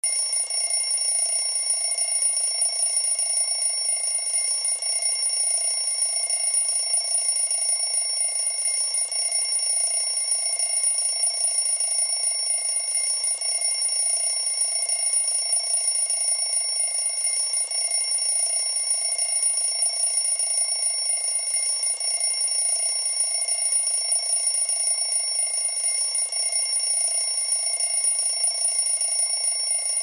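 Countdown timer's finishing alarm going off as the timer runs out at zero. It starts suddenly and rings without a break, several steady high tones over a lower fluttering one.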